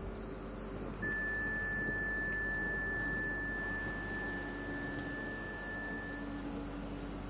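Steady high pure tone held like a drone, joined about a second in by a second, lower steady tone that stops a little before the end, over a faint low hum.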